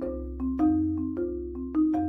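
Background music: a bright struck-note melody over a low held bass, with a new note every quarter to half second.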